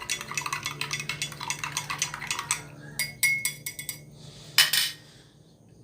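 A spoon stirring honey into a hot ginger drink in a cup, clinking rapidly against the sides. The fast clinking stops about two and a half seconds in. A few separate clinks follow, then one louder clink-clatter about four and a half seconds in.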